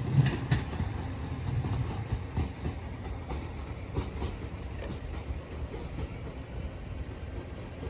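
A passenger train running over the level crossing and moving away, its wheels clicking over the rail joints as the rumble slowly fades.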